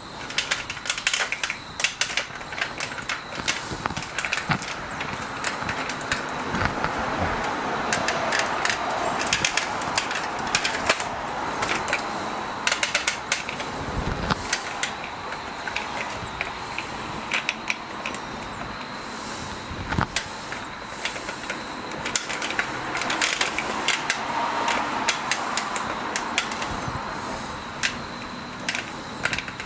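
Irregular metallic clicks, knocks and scraping from hand tools and parts worked by hand on a mower's self-propel drive, with a few short high squeaks as metal rubs on metal.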